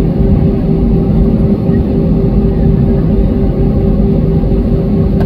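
Steady cabin drone of an airliner waiting on the ground to take off, engines idling: a loud low rumble with a constant hum that does not change.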